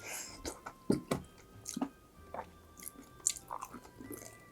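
Close-up chewing and biting of crispy fried food, with sharp crunches and wet mouth sounds, over soft background music.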